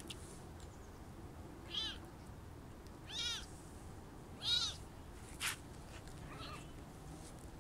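Very young kittens mewing: three high, thin mews about a second and a half apart, then a short sharp click and a fainter mew.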